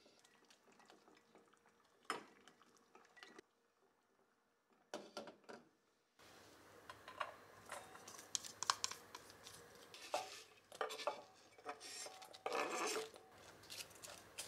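Wooden chopsticks clicking and scraping against a stainless steel bowl as shredded cabbage is scraped in from a glass bowl and tossed, with a denser rustle of cabbage being mixed near the end. Before that come a few faint kitchen knocks and clinks with quiet gaps.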